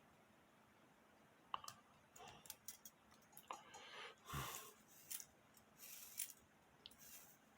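Faint, scattered clicks and a few brief rustles: small metal parts of a cuckoo clock movement being handled while a lever is refitted.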